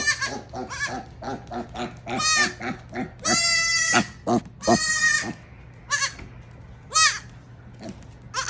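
Animal calls: a quick run of short calls, then several longer drawn-out bleats from about two seconds in, and a few shorter ones near the end.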